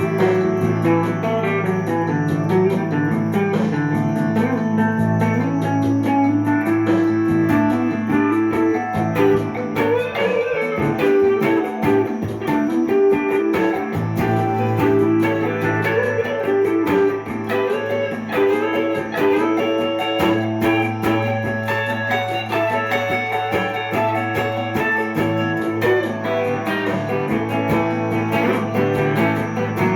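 Gibson ES-339 Custom semi-hollow electric guitar improvising a jazzy melody with Indian colouring over sustained low notes. The low notes drop out for a few seconds about halfway through, then return.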